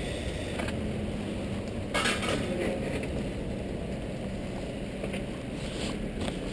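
Metal clanks and rattles of a bicycle knocking against a steel bike rack as it is parked: one sharp clank about two seconds in, then a few lighter clinks near the end.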